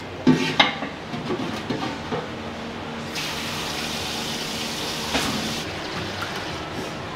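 Water running from a tap into a large stainless-steel pot in a sink: an even rush that lasts about two and a half seconds and stops abruptly. Two sharp knocks sound shortly before it, near the start.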